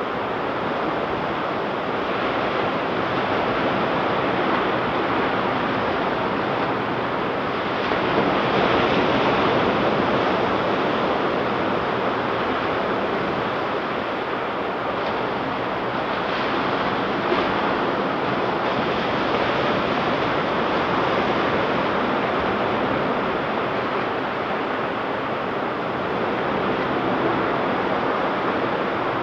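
Ocean surf washing steadily onto a beach, a continuous hiss of breaking waves that swells a little now and then, with some wind noise on the microphone.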